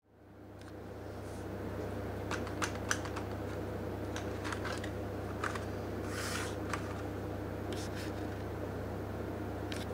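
Plastic blister pack being picked up and handled: scattered light clicks and crinkles, with a short rustle about six seconds in, over a steady low hum that fades in at the start.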